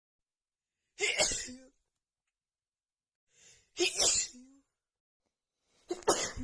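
A woman sneezing three times in a row, about two and a half seconds apart, each a sudden burst with a brief trailing voice. It is a sneezing fit brought on by dust and a nose running from the cold.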